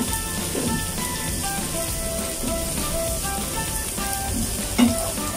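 Carrots and bell pepper sizzling in a nonstick frying pan as they are stir-fried with a spatula. The spatula knocks against the pan once right at the start and again near the end. Background music with a light melody plays throughout.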